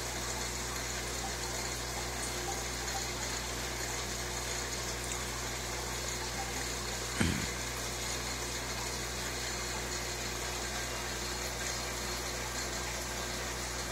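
Aquarium filter pump running, a steady hum and water hiss, with one short low thump about seven seconds in.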